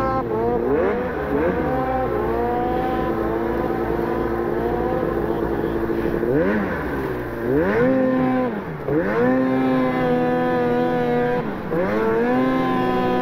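Snowmobile engine under way, its pitch climbing and holding with the throttle. In the second half the throttle is backed off and opened again three times, each time a drop and a fresh rise in pitch.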